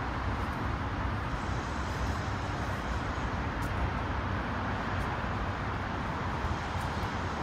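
Steady hum of distant road traffic, an even rumble with no distinct events.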